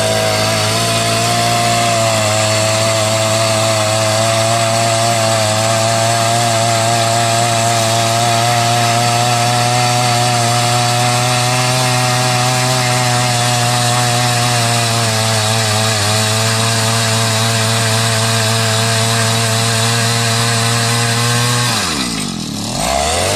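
A machine engine running steadily with a constant low hum; near the end its pitch drops and then climbs back up.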